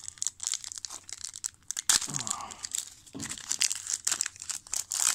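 Trading-card pack wrapper crinkling and tearing as it is opened by hand: a dense run of rapid crackles.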